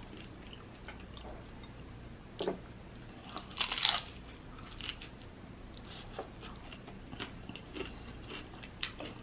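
A person biting into a crisp, consommé-dipped birria taco, a crunchy bite loudest a little under four seconds in, then chewing with scattered small clicks.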